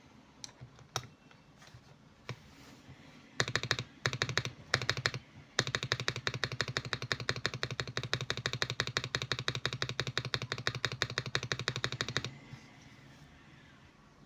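Typing on a mechanical keyboard with lubed Akko switches. A few scattered keystrokes come first, then about three seconds in there are fast, even runs of key presses with two brief pauses. The typing stops a couple of seconds before the end.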